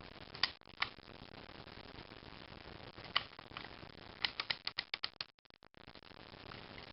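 Sharp metallic clicks from the mechanism of a Marksman Repeater 1010c spring air pistol: two single clicks, another a few seconds later, then a quick run of about seven clicks.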